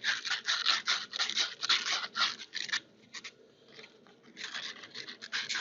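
Copper pipe and fittings being scrubbed clean by hand with an abrasive, preparing the copper for soldering: quick rasping strokes, about three or four a second. The strokes pause for about a second and a half midway, then resume.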